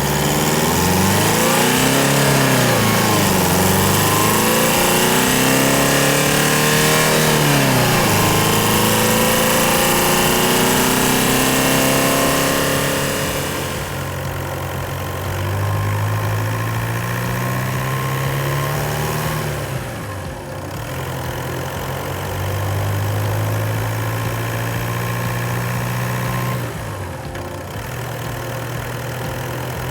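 Audi A4 B8 2.0 TDI four-cylinder turbodiesel engine revving. In the first dozen seconds the revs rise and fall about three times, then come long steady climbs in revs that break off suddenly, twice.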